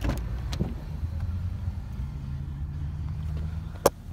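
A low steady rumble with a few light clicks, then a car door shutting with one sharp thud near the end, after which the sound turns duller as from inside the closed cabin.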